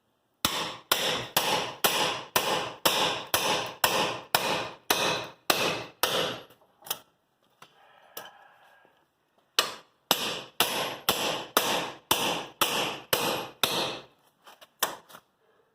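Hammer blows driven hard and fast into a chisel to break a seized front-axle part loose, about two to three strikes a second, in two runs with a short pause in between.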